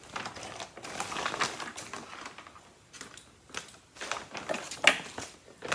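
Feed sack being handled and shifted on a sewing machine bed, rustling and crinkling irregularly, with a sharp knock a little under five seconds in.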